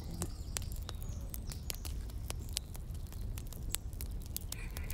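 Campfire crackling: irregular sharp pops and snaps over a low steady rumble.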